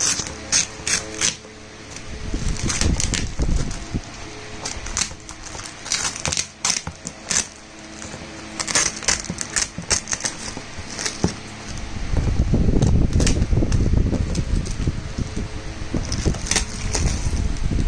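Crinkling and crackling of a plastic courier bag being pulled and torn off a cardboard box, in quick sharp crackles. In the second half it gives way to heavier rubbing and handling noise against the box.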